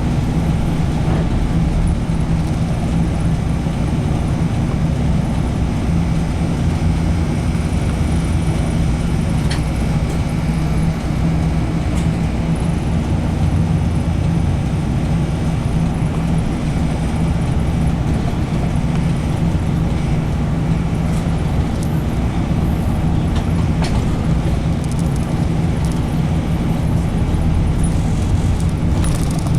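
Steady drone of a route bus's engine and tyres heard from inside the cabin while the bus cruises, with a few faint rattles from the bus's fittings.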